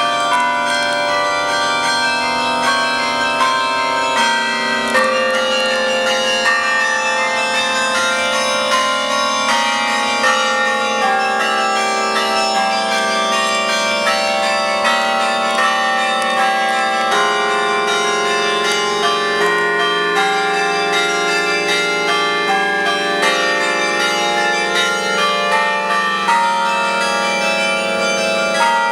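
Carillon of 62 tower bells ringing, many notes struck in quick succession at changing pitches, each ringing on and overlapping the next.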